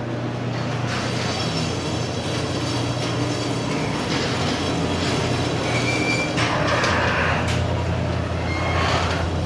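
Overhead garage door opener running as the sectional door rises, with its motor humming and the door's rollers rumbling and squeaking along the steel tracks.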